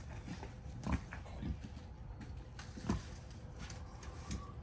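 Pigs grunting: a few short, separate grunts over a low steady background.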